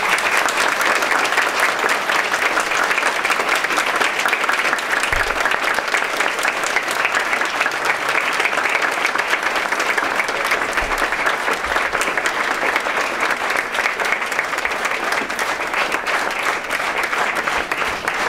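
Audience applauding: many people clapping at once, dense and steady, starting up suddenly.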